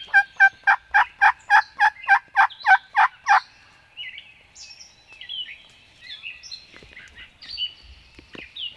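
Wild turkey yelps: a run of about a dozen evenly spaced, loud notes, roughly three or four a second, stopping about three and a half seconds in. After that, small songbirds chirp faintly.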